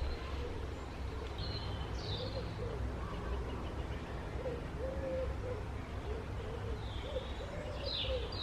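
Repeated low cooing bird calls, with a few short higher chirps from small birds, over a steady low rumble.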